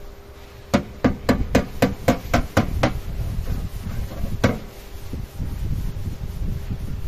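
Hammer blows on a damaged car fender during body repair: a quick run of about nine blows, roughly four a second, then a single blow a couple of seconds later.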